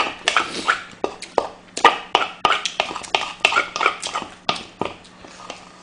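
Close-miked eating sounds: quick, irregular clicks and taps of chopsticks against a bowl, mixed with wet chewing.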